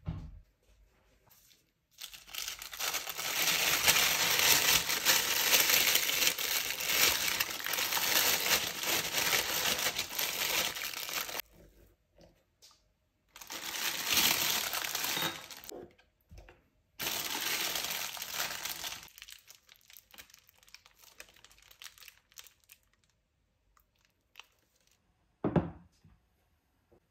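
Plastic disposable piping bag crinkling as it is opened and filled with cream by spatula, in three long stretches. A single dull thump near the end.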